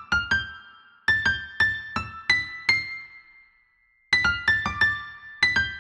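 Background music: a keyboard, electric-piano-like, playing a light melody of struck, decaying notes. It stops briefly about three seconds in, then picks up again.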